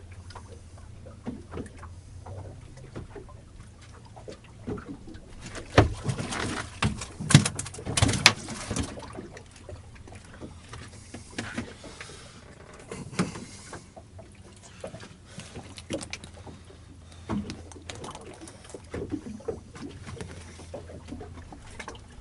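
Honda 250 outboard idling with a low steady hum while a fish is reeled in, with a few sharp knocks and clatter on the boat about six to eight seconds in. The hum dies away near the end.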